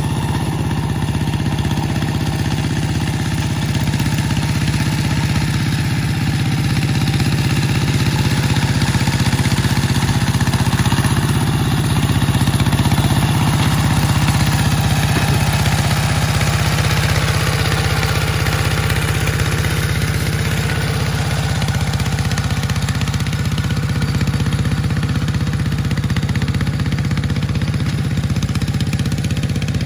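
Kuliglig hand tractor's single-cylinder diesel engine running steadily under load as its iron cage wheels drive through a flooded rice paddy. It grows louder about halfway through, as the tractor passes closest, then eases slightly as it moves away.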